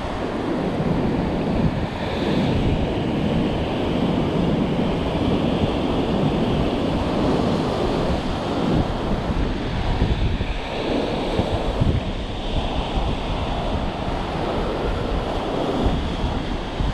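Ocean surf breaking and washing around coastal rocks in a continuous rush that swells and eases every few seconds, with wind buffeting the microphone.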